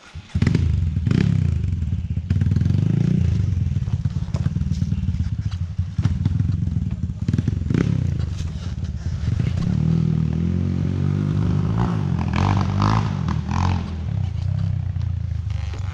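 Off-road dirt bike engine running and revving under load as the bike rides over rough ground, with clattering and scraping from the bike. The engine sound comes in abruptly just after the start.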